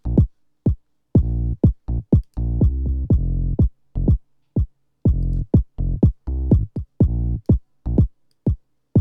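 House music loop playing back: short, punchy drum-machine kick hits in a steady pattern with sustained synth bass notes between them. The kick is shaped by a transient shaper, with its low end trimmed and a more percussive attack. The loop drops out briefly just after the start, then resumes.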